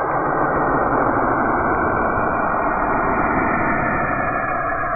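Saturn's radio emissions, recorded by a NASA spacecraft and converted to audio: a loud, steady, dense rushing noise, with faint steady tones starting to come through near the end.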